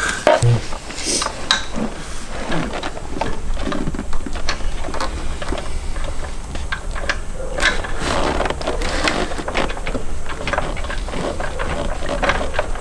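Metal hand tools clinking and clattering in a car's engine bay as wrenches and sockets are tried on the timing-belt tensioner bolt. A steady low hum runs underneath.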